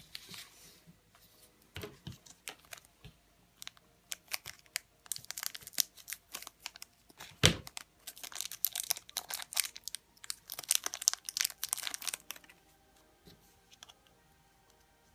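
Thin clear plastic bag crinkling and rustling as it is torn open and a small plastic stand is pulled out, with one sharp knock about halfway through. The crinkling dies away in the last few seconds.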